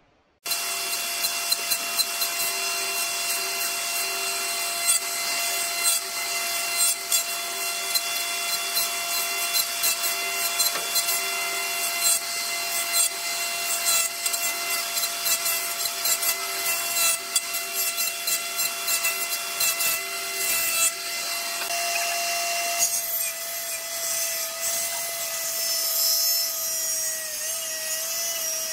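Electric jointer (surface planer) running with a steady whine while a thick wooden beam is fed across its cutter head, the cutting adding a dense rough crackle. Near the end the whine wavers and dips slightly in pitch.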